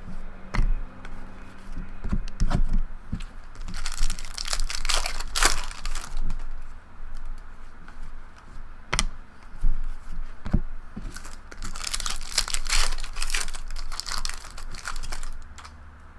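Trading-card pack wrappers being torn open and crinkled, in two stretches of rustling: about four seconds in, and again from about eleven to fifteen seconds. Sharp taps from handling the cards come in between.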